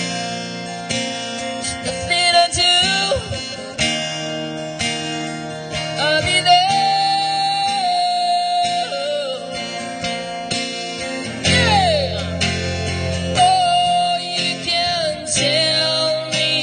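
Acoustic guitar strumming and picking, with a sustained, sliding melody line over it.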